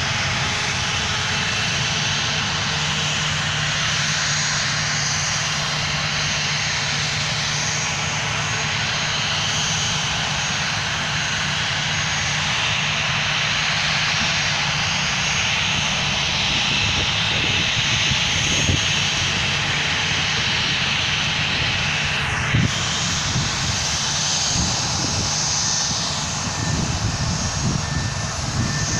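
Boeing 737-700's CFM56 jet engines running, a loud steady noise with a low hum underneath. A single brief thump about three-quarters of the way through.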